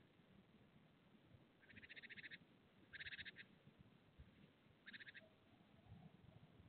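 Faint calls of a wild animal: three short, fast rattling trains about two, three and five seconds in, the first the longest and the last the shortest.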